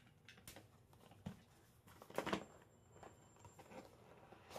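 Insta360 One X retail box handled and opened by hand: faint scraping and rubbing of the packaging with a few light clicks, the loudest knock and scrape just after two seconds in.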